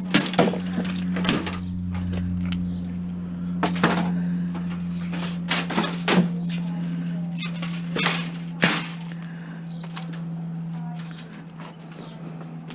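Scrap being handled and pulled apart: scattered sharp knocks and clatters, about ten of them in the first nine seconds, over a steady low hum.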